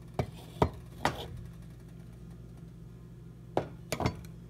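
Kitchen dishes knocking and clinking on a countertop: three sharp knocks in the first second and three more near the end, each with a short ring. A steady low hum runs underneath.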